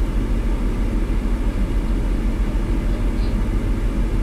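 A car's air conditioning blowing steadily inside the cabin, over the low rumble of the idling engine.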